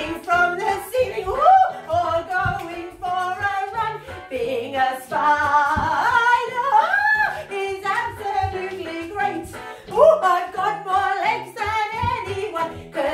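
A woman singing a lively children's song, with a steady instrumental beat underneath.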